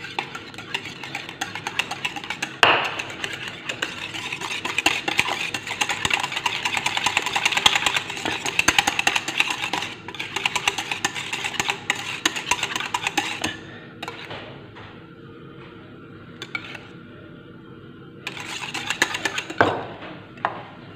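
Wire whisk beating fast against a small stainless steel saucepan, a rapid clinking rattle as margarine is whisked into thick orange sauce. The whisking stops about two-thirds of the way through, then comes back in a short burst near the end.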